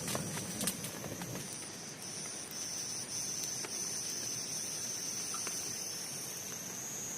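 Steady rain falling, heard as an even hiss, with a continuous high-pitched insect trill over it. A few light drips or ticks fall in the first second.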